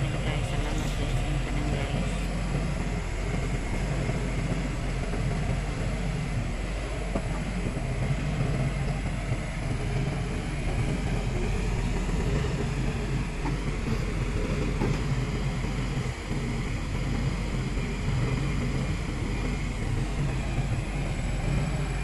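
XCMG XE155DK crawler excavator's diesel engine running steadily, a low, even drone.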